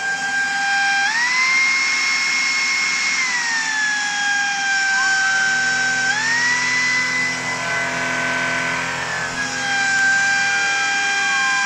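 Shark Duo Clean cordless vacuum cleaner running with a high steady whine; the motor pitch steps up and settles back down twice, and a lower buzz joins in the middle.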